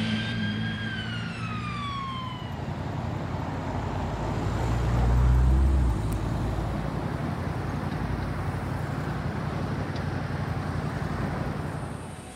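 Street traffic: a siren's wail falls in pitch and fades over the first two seconds or so, over idling engines. Then a deep engine rumble swells to its loudest around five seconds in and breaks off, and steady traffic noise follows.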